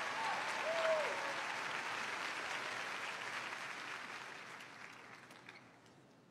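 Theatre audience applauding, with a brief cheer about a second in. The applause dies away over the last two seconds.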